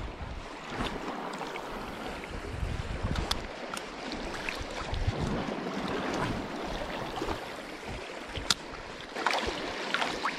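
Sea water sloshing and swirling around a wading angler's legs as he moves slowly through the shallows, with gusty wind rumbling on the microphone. A few sharp clicks or small splashes cut through, the clearest about eight and a half seconds in.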